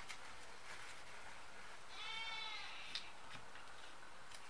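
One faint, bleat-like animal call about two seconds in, its pitch rising and then falling, over quiet room tone, with a few soft clicks of handling.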